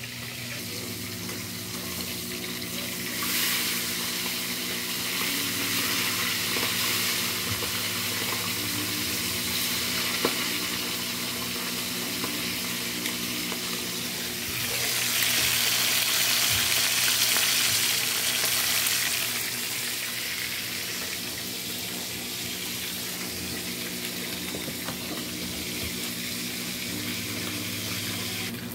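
Fish frying in hot oil in a wok, a steady sizzle that swells louder for a few seconds past the middle. A steady low hum runs underneath.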